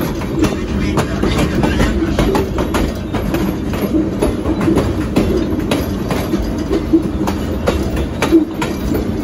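Steel wheels of a moving railroad car rolling on the rails: a steady rumble with scattered sharp clicks and knocks as the wheels run over the track.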